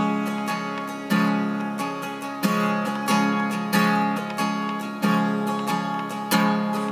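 Acoustic guitar strummed in a steady rhythm, a chord stroke about every two-thirds of a second, with the chords ringing on between strokes.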